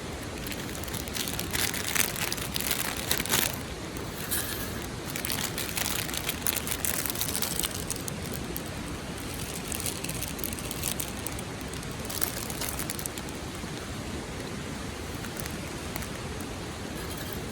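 Steady rush of river water, with irregular bursts of crackling and rustling close by during the first dozen seconds or so.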